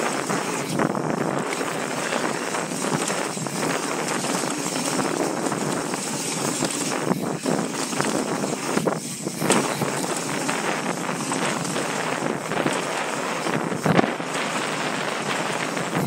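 Wind rushing over the microphone of a camera riding a mountain bike downhill, mixed with the noise of the bike rolling over the trail. Two sharper knocks come through, one about halfway and a louder one near the end, as the bike hits bumps.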